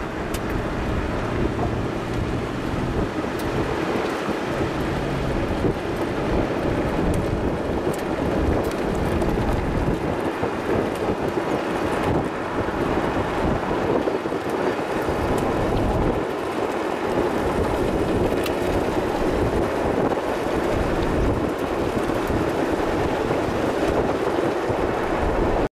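Strong wind blowing across the microphone: a steady rushing noise with irregular low rumbling gusts.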